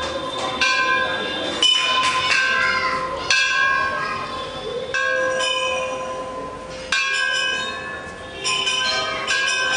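Temple bells struck by hand again and again, about eight strikes a second or two apart, each ringing on with a steady metallic tone at several pitches.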